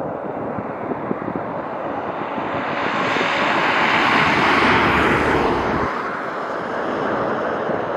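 Jet airliner's engines as it flies past: a broad rushing noise swells to a peak about halfway through, then fades.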